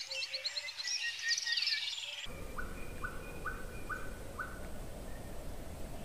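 Songbirds chirping and trilling in quick, high notes. A little over two seconds in it cuts abruptly to a steady background hiss with one bird repeating a short whistled note five times, about two a second.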